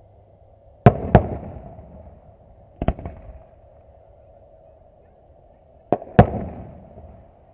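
Aerial firework shells going off at a distance: three pairs of sharp booms, about a second in, just under three seconds in and about six seconds in, each dying away in a rolling echo.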